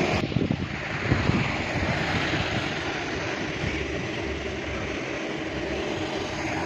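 Steady hiss and hum of a self-service car wash, with spraying and machinery running in the wash bays. A few low knocks in the first second or so.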